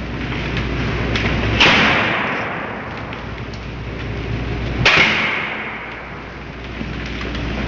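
A synthetic sound effect: two sudden sharp hits about three seconds apart, each followed by a hissing tail that fades over about two seconds.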